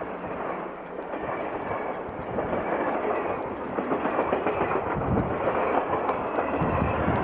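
Amtrak Pacific Surfliner passenger cars rolling past at speed, a steady rush of wheel and rail noise that grows slightly louder. Near the end the trailing F59PHI diesel locomotive comes by, adding a steady low engine hum.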